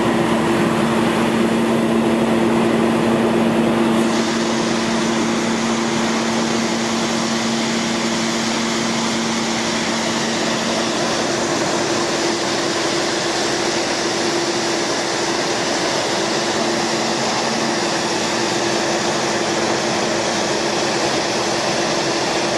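Sandvik Tamrock Titon 600 DTH drill rig running steadily during a function test: a loud machine noise with two steady low hums. About four seconds in the sound shifts, the high hiss growing as the level dips slightly.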